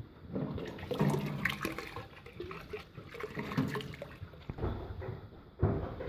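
Pigs grunting over wet sloshing and splashing, with a heavier thump near the end.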